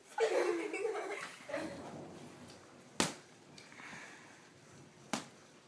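Two sharp smacks about two seconds apart: boxing gloves landing punches.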